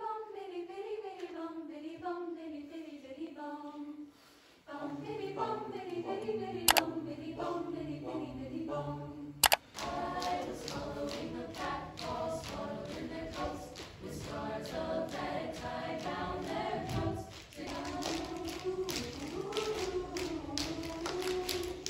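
School choir singing a cappella. The sound briefly drops out about four seconds in and again about nine and a half seconds in. In the later part the singing is joined by a run of sharp, evenly repeated clicks that keep a beat.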